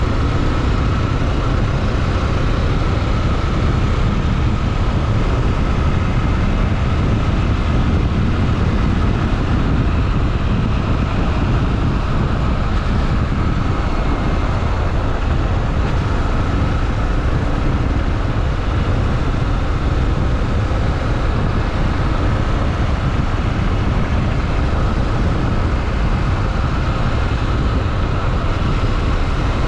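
Honda XRE 300 motorcycle's single-cylinder engine running steadily under way, mixed with heavy wind and road noise. Engine speed holds even throughout.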